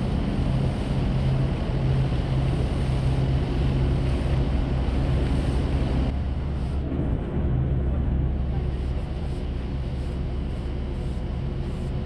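An engine running steadily at idle, with wind on the microphone. The engine's pitch and balance change abruptly about halfway through.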